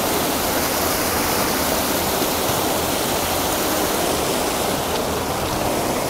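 Fast-flowing mountain stream rushing and splashing over boulders: a steady, unbroken rush of white water.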